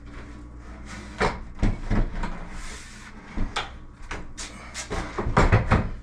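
Laminate countertop knocking and scraping against wooden base cabinets as it is tilted and lowered into place: irregular knocks that come thicker and louder near the end.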